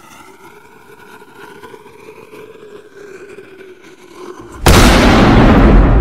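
Cinematic explosion sound effect. A quiet lead-in with a faint, slowly rising tone, then a sudden loud blast about four and a half seconds in, its highs fading first.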